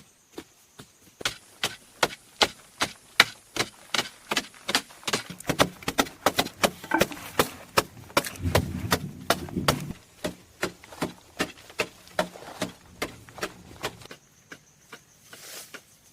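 A hand tool chopping or striking over and over, about two to three sharp blows a second. For a couple of seconds around the middle the blows are joined by a duller, heavier thudding.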